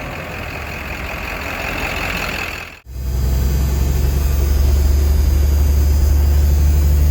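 Cummins diesel engine of a 1982 Marmon truck idling steadily. The sound cuts off sharply about three seconds in, and when it comes back the low engine sound is stronger and steadier.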